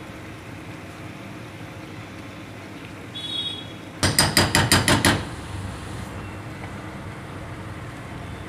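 A quick run of about seven ringing taps, some six a second and lasting about a second, halfway through: a spatula knocked against the rim of a cooking pan, over a steady low hiss.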